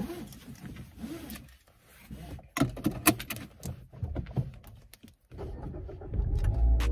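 Scattered clicks and knocks of things being handled inside a car. About five seconds in, a low steady rumble sets in and music starts playing near the end.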